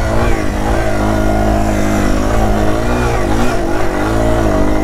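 Yamaha TW200's single-cylinder four-stroke engine running at low revs while riding a steep off-road trail, the engine note rising and falling with the throttle.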